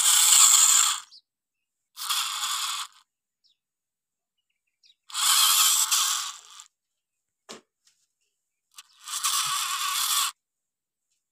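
Toy Kubota MU4501 tractor's small electric gear motor and gearbox grinding in four short bursts, each a second or two long, as power is switched on and off. The tractor is straining against a stuck trolley loaded with sugarcane.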